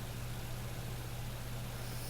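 Steady low hum over a faint even hiss in the quiet gap between two snores. No snore sounds in this stretch.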